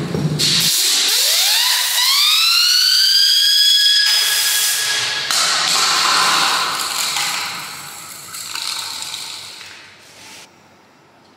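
A 3D-printed spinning UFO toy whistling like a siren: its whine glides up in pitch for a few seconds as it spins up, then holds steady over a rushing hiss. The tone cuts off about five seconds in, and the hiss dies away near the end.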